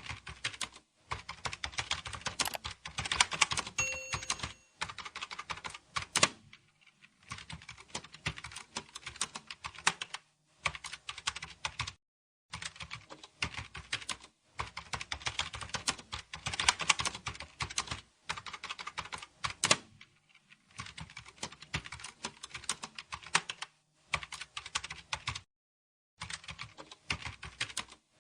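Typing on a computer keyboard: quick runs of key clicks in bursts of a few seconds, broken by short pauses, with an occasional louder single keystroke.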